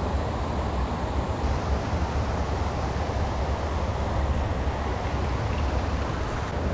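Steady wind noise on the microphone: a low rumble with a hiss above it, with no clear events.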